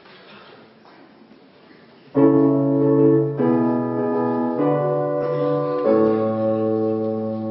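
Low room noise, then about two seconds in a piano-type keyboard comes in and plays four held chords one after another, the last still ringing at the end.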